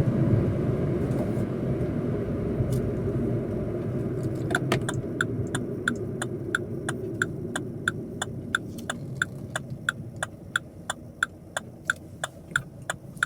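Opel Corsa D cabin: engine and road rumble fading as the car slows. About four and a half seconds in, the turn-signal indicator starts ticking steadily, about three ticks a second.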